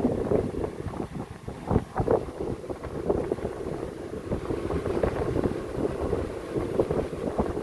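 Old 5-thread overlock sewing machine's mechanism being worked, with irregular clicking and knocking of its shafts and parts.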